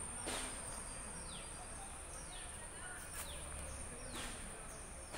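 Garden ambience: a steady high insect drone, with short falling bird chirps repeated about once a second.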